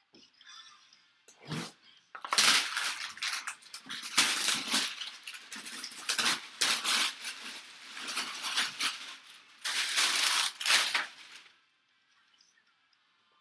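Plastic shrink wrap crinkling and crackling as it is torn and peeled off a cardboard box, dense and continuous for about nine seconds before it stops. A soft knock from the box being handled comes just before.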